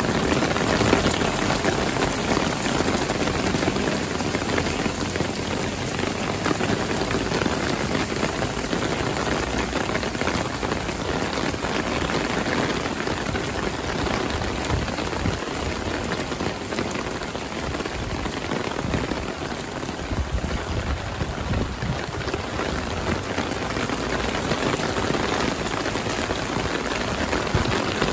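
Heavy downpour pouring onto wet pavement and puddles: a dense, steady hiss of rain with no let-up.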